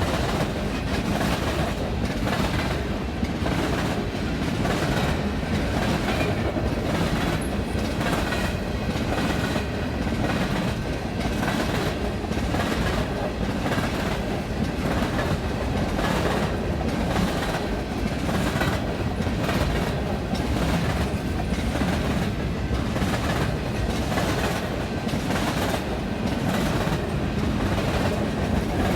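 Canadian Pacific freight train rolling past, its cars' wheels clacking over the rail joints in a steady, even rhythm.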